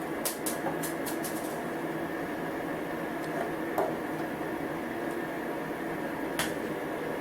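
Small metallic clicks from a Phillips screwdriver working set screws on an embroidery machine's slider hook bracket: a quick run of five or six clicks in the first second and a half, then single clicks near the middle and near the end, over a steady hum.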